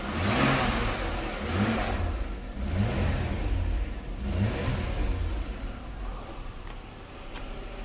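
Holden VX Commodore engine being revved in a series of short blips, each rising and falling, about one a second, then settling back toward idle in the last few seconds.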